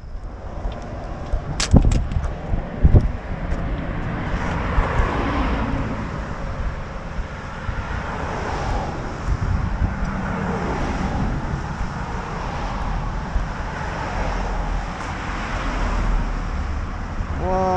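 Cars passing on a road bridge, their tyre and engine noise swelling and fading one after another. There are two sharp knocks about two and three seconds in.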